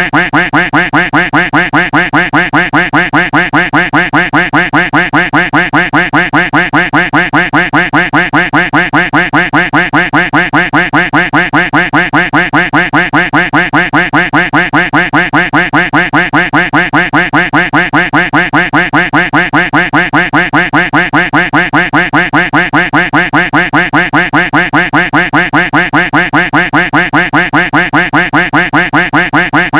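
A duck quack sound effect looped back to back, about four quacks a second, without a break.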